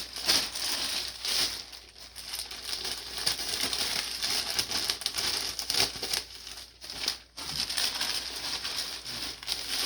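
Plastic poly bag crinkling and rustling as it is handled, cut open and unpacked, with many small crackles throughout.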